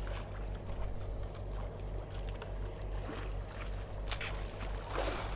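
A small fishing boat's engine running steadily at idle, with a few faint clicks and a short splashy hiss near the end.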